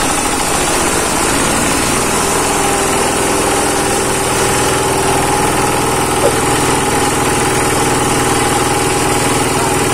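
D-Veron husk and corncob grinding mill running steadily while corncobs and rice husk are fed into its hopper, with a brief knock about six seconds in.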